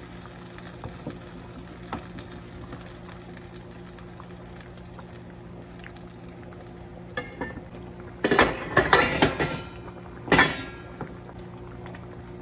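Cookware clattering: a few light clinks about seven seconds in, then a burst of metal clanking and scraping a second later, and one more sharp clank near ten seconds, over a steady low hum.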